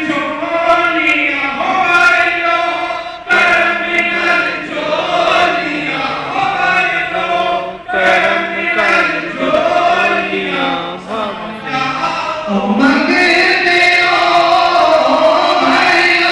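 A large crowd of men chanting a devotional song in unison at a Milad gathering, line after line with short breaks between the lines.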